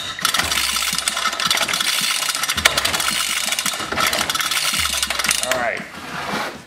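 Recoil starter rope pulled over and over on a Suffolk Super Colt small engine, the engine turning over with a fast clatter but not firing; the sticky, gummy crank is freeing up after a spray of WD-40.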